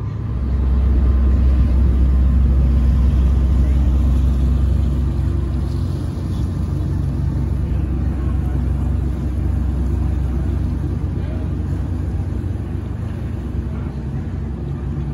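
Low, steady engine rumble of a large ship as it moves slowly past and out of a lock chamber. The rumble is loudest for the first few seconds, then eases slightly as the stern pulls away.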